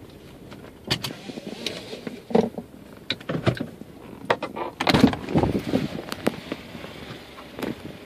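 Irregular knocks and clunks of a phone camera being lifted off the car's dashboard and handled, the loudest cluster about five seconds in, over a low steady background.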